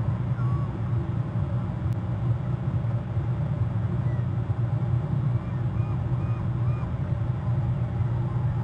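A steady low hum, with a few faint short bird calls a little past the middle.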